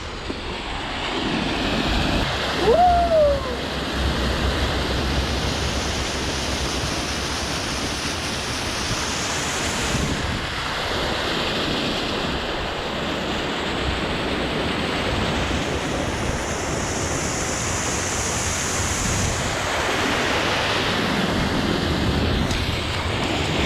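Steady rush of a waterfall's falling water, with wind buffeting the microphone for a few seconds near the start.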